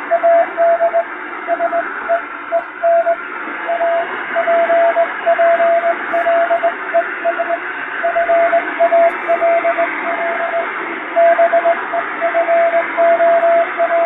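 Morse code sent by hand on a straight key, heard as a single steady tone switching on and off in dots and dashes and spelling out English plain-language text. The signal sits over a steady hiss of shortwave radio noise with fading, like a radiotelegram received on a radio.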